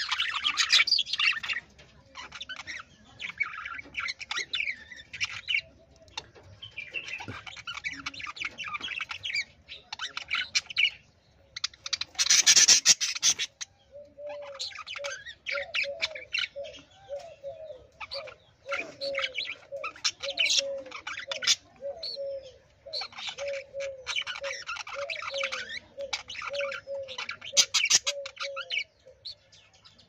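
Budgerigars chattering and warbling: irregular bursts of fast chirps and squawks, with a louder burst about halfway through. From about halfway on, a low short note repeats about twice a second underneath.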